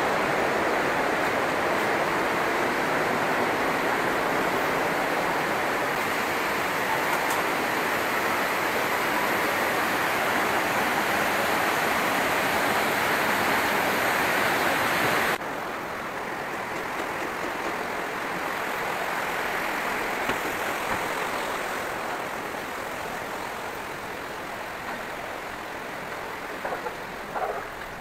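Steady rush of fast-flowing mountain water from the river and a torrent over rubble. It drops suddenly to a quieter rush about halfway through, and a dog barks briefly near the end.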